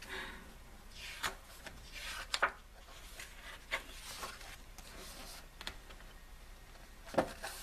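Glossy pages of a large album photobook being turned and smoothed flat by hand: a handful of short paper rustles and light slaps, the loudest near the end.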